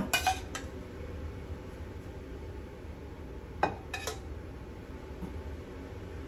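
A kitchen utensil clinking and knocking against dishes: a few short clinks near the start and two more about four seconds in, over a steady low background hum.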